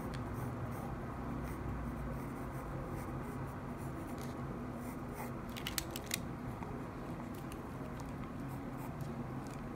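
Pencil scratching on sketchbook paper in short strokes, with a few sharper ticks close together about six seconds in, over a low steady hum.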